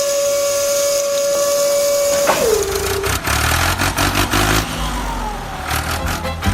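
Small motor whining steadily at a high pitch, then winding down with a falling pitch a little over two seconds in. A noisy stretch of clicks and low beats follows.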